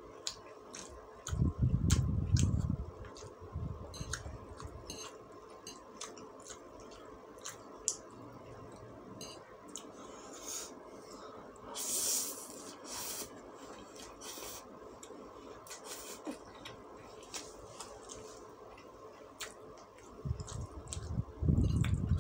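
Close-up mouth sounds of someone eating fried noodles: wet chewing with many small clicks and light scrapes of a fork and spoon, and a hissing slurp of noodles about halfway through. Low muffled rumbles come about two seconds in and again near the end.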